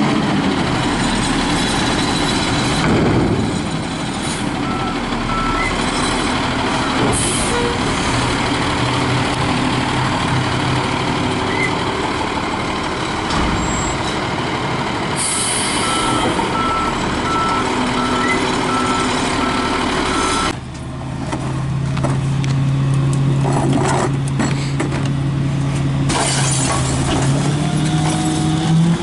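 Front-loading garbage truck working a dumpster: diesel engine and hydraulics running, air brakes hissing twice, and a backup alarm beeping briefly about five seconds in and again for several seconds past the middle. About two-thirds of the way through, the sound changes to a McNeilus rear-loading garbage truck's engine running with a steady low hum.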